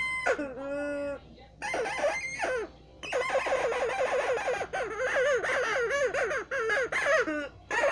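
A squeaker taken out of a toy, held to the mouth and blown through, making high, squeaky, clucking chirps. A few short held squeaks come first, then from about three seconds in a fast, wavering run of squeaks.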